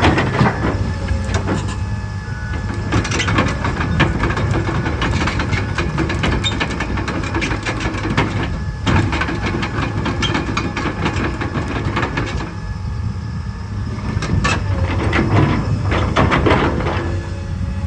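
Komatsu PC200 excavator's diesel engine running with a steady low hum, over a dense metallic clatter of clicks and clanks that comes in heavier clusters near the start and again near the end.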